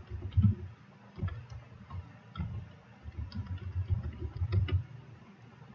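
Typing on a computer keyboard: irregular keystroke clicks and thumps, stopping shortly before the end.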